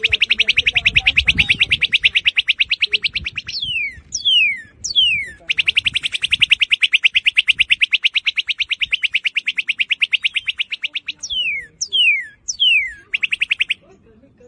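Northern cardinal song: loud downslurred whistles alternating with long, rapid trills, the first trill lasting about three and a half seconds and the second over five seconds, ending with a short trill near the end.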